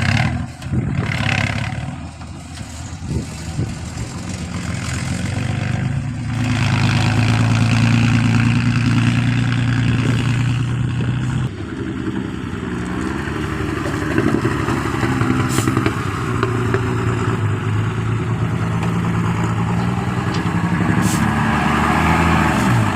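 Excavator's diesel engine running under load, its note shifting about halfway through and wavering up and down after that, with some clatter.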